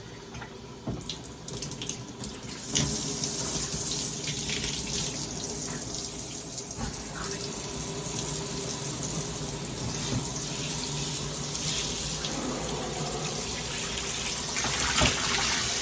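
Phiten-infused shower head spraying water: a few light clicks, then the water comes on about three seconds in and runs in a steady hiss.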